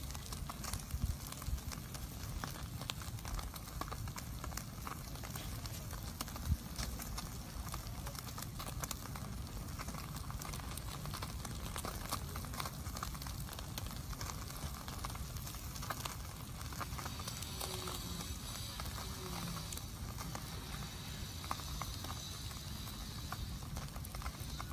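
Small open wood fire crackling, with irregular sharp pops over a steady low rumble.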